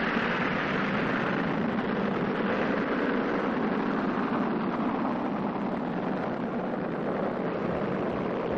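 Spaceship engine sound effect: a steady rushing noise whose hiss slowly sinks lower in pitch over the seconds.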